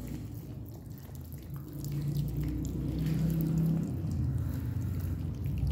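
Puppies eating boiled rice from a plastic plate: wet lapping and chewing with many small clicks, over a low steady hum that grows louder about two seconds in.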